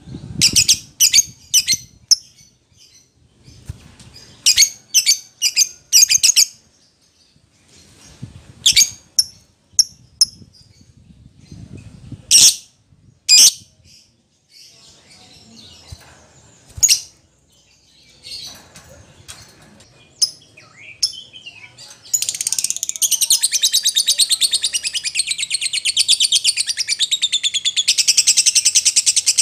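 Agitated lovebird calling: sharp, high chirps in short bursts, then about 22 seconds in a long, rapid, unbroken chattering trill.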